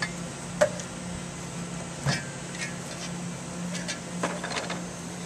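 Scattered knocks and clunks, about seven of them, the loudest two near the start and about two seconds in, as the sections of an Expandacraft modular boat are handled and pulled apart. A faint low hum runs underneath.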